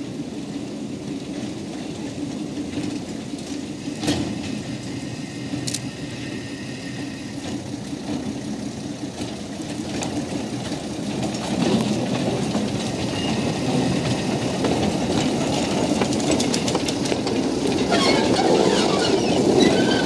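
Small narrow-gauge diesel locomotive (Sakai Works No. 84) running as it pushes tank wagons along the track, its engine growing steadily louder as it approaches. Near the end, wheels click and rattle over the rails and points.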